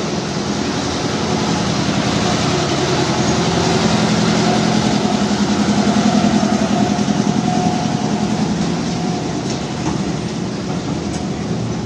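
A park mini toy train's engine running with a fast, pulsing throb as the locomotive and its passenger carriages pass close by. It grows louder to about halfway through, then eases off as the carriages roll past.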